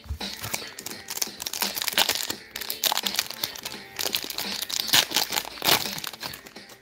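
Foil wrapper of a Prizm Monopoly trading-card pack crinkling and tearing as it is opened by hand, an irregular crackle throughout.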